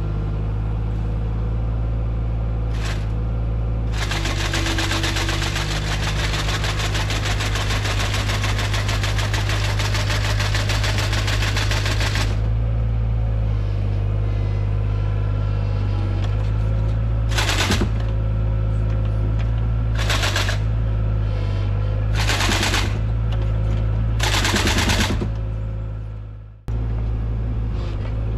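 Mini excavator engine running steadily while the hydraulically driven knife of an Aros finger-bar (sickle-bar) mower clatters very rapidly for about eight seconds, then in four short bursts. Near the end the sound drops away briefly and comes back.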